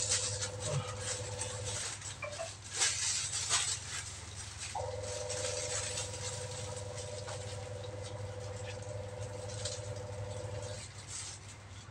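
Toothbrush scrubbing teeth in quick, rough strokes over a low steady hum. A steady tone sounds from about five seconds in until near the end.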